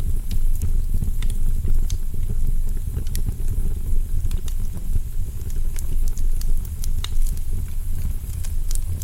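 Wood fire burning in a fireplace: a steady low rumble with irregular sharp crackles and pops from the logs.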